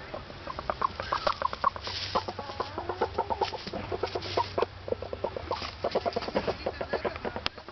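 Rooster giving a rapid, continuing run of short clucking calls, an unusual sound for a rooster.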